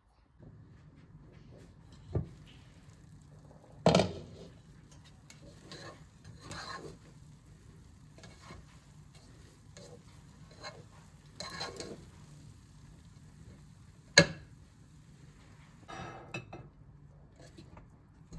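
A plastic slotted utensil stirring and scraping cooked rice in a metal cooking pot, with a few sharp knocks of the utensil against the pot, the loudest about four seconds in and again near fourteen. A low steady hum runs underneath.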